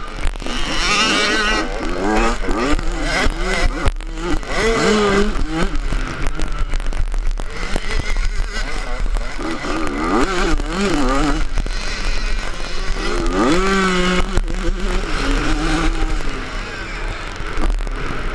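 Yamaha 85 two-stroke motocross bike engine revving hard, its pitch rising and falling again and again as the throttle is opened and shut through the corners and straights. A steady low wind rumble sits on the on-board microphone.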